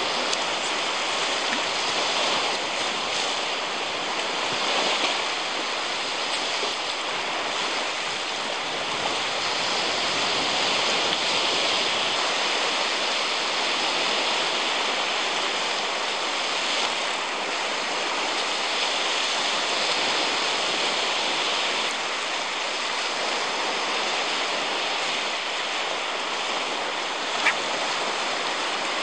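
Small Baltic Sea waves breaking and washing up a sandy beach as a continuous rushing noise. A single sharp click near the end.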